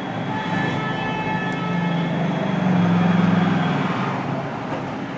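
Road traffic going past, with a vehicle sounding a long, steady, pitched horn or siren tone that swells to a peak about three seconds in and then fades.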